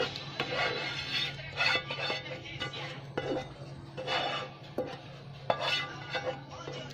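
A slotted spatula scraping and knocking against a pot as thick béchamel sauce is scooped out onto macaroni salad, a string of irregular scrapes and taps, over a steady low hum.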